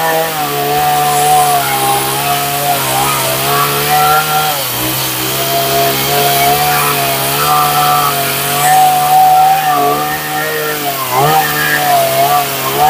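Gas chainsaw running at high revs while cutting into a western red cedar post. The engine note wavers as the chain loads up in the wood, sagging about five seconds in and again briefly near eleven seconds before picking back up.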